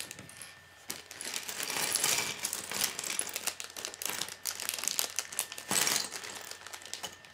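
Clear plastic parts bag crinkling as small Lego Technic pieces are rattled and tipped out of it onto a wooden tabletop, with many small clicks and clatters of plastic parts. Quieter for about the first second.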